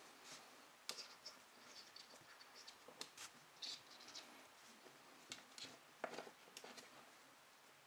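Faint scratching and rustling of paracord under the fingers as the coils of a rolled slipknot bracelet are pushed along the cord, with a few short scuffs scattered through.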